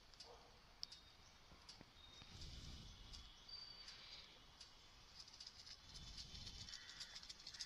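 Near silence: faint outdoor ambience with scattered faint ticks and a brief high chirp about halfway through.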